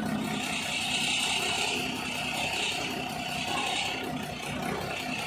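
Nissan PK215 truck's diesel engine idling steadily.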